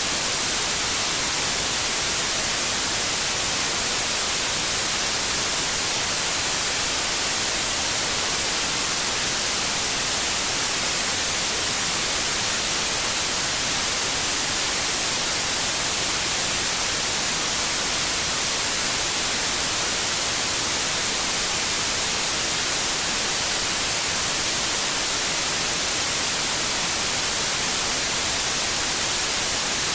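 Steady white noise: an even, unbroken hiss that does not change in level or character.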